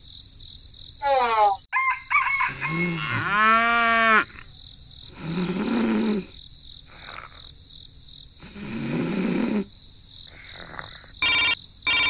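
A run of cartoon sound effects: a short falling glide, then a rooster crowing, then snoring in two breaths a few seconds apart. Near the end a phone starts ringing in two short bursts.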